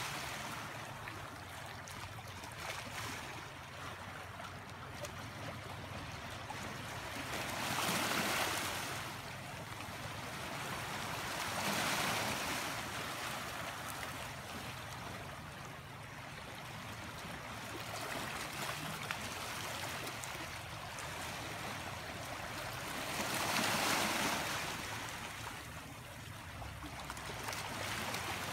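Small sea waves washing around rocks and onto a pebble shore: a steady hiss that swells louder four times as waves come in.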